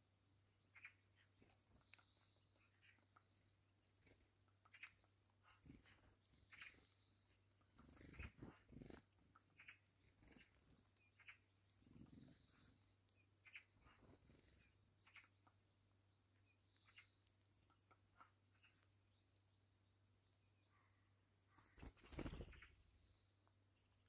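Grey-headed woodpecker pecking at suet in a wire feeder: faint, irregular soft taps. A small bird calls repeatedly, high and faint, in the background, and there is a louder low rustle about 22 seconds in.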